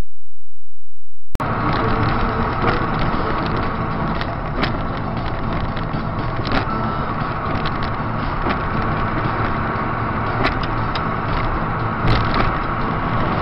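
Steady road and engine noise of a moving car, with a constant whine and scattered light clicks and knocks; it cuts in suddenly about a second and a half in.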